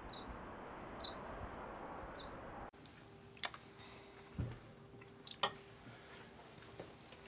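Several short, high bird chirps over a faint outdoor hiss. About two and a half seconds in, this cuts abruptly to a quieter room with a faint steady hum, where metal spoons and chopsticks clink a few times against ceramic bowls.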